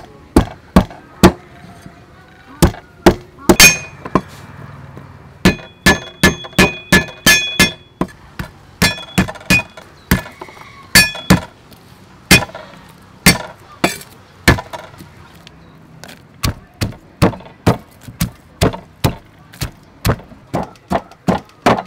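A long run of sharp knocks from food preparation, some with a ringing clink in the middle stretch. Toward the end it settles into steady pounding, about two to three strokes a second, of a wooden pestle in a wooden mortar.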